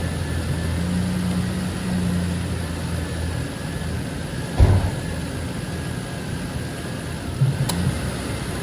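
Ford Ranger pickup's engine idling steadily, left running with the heater on while air is bled from its cooling system. A short thump about halfway through.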